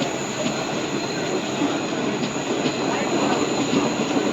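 Train running past: a steady loud noise of coaches rolling on the rails, with a thin high whine and light clicks from the wheels.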